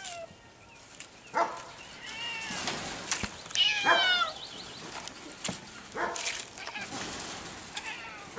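Serval cats calling with high, downward-sliding chirps and meows, several overlapping about two and about four seconds in, with a few short sharp sounds in between.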